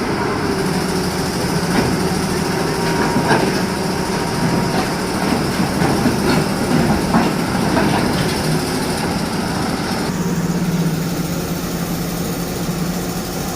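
An engine running steadily, with scattered clanks and knocks over the middle part.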